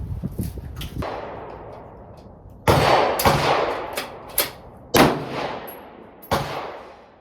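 Rifle shots on an outdoor range: four loud reports one to two seconds apart, with two fainter shots in between, each echoing away.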